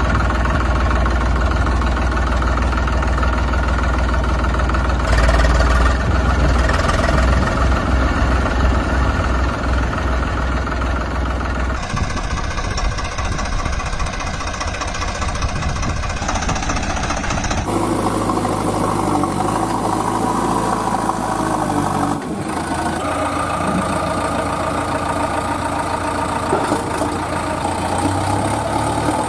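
Tractor engine sound running steadily, likely a sound effect laid over toy footage. Its character changes abruptly about twelve, eighteen and twenty-two seconds in.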